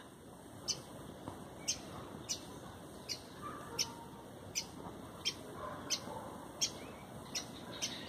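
Rufous-collared sparrow (tico-tico) giving short, sharp, high alarm chips, about ten, spaced roughly evenly every three-quarters of a second: the parent bird agitated by a person at its nest.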